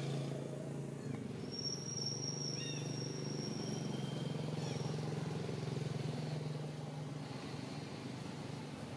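A steady low engine hum that eases about seven seconds in, with a few thin high whistles and short chirps over it early on.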